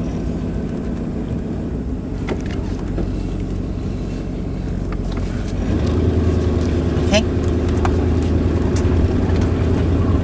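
Class C motorhome engine running with a steady low hum. About six seconds in it grows louder as the RV pulls away and gathers speed, with a few light rattles, heard from inside the cab.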